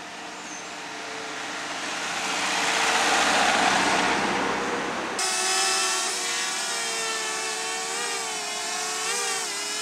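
A vehicle drives past close by, its noise swelling to a peak and easing off. About five seconds in, the sound changes abruptly to the whine of a small quadcopter drone's propellers, wavering up and down in pitch as it manoeuvres.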